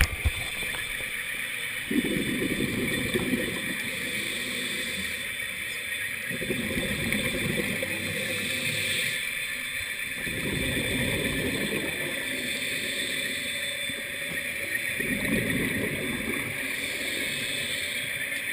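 Scuba regulator exhalation bubbles heard through an underwater camera housing: a gurgling rush of bubbles every few seconds, in time with the diver's breathing, over a steady high hum.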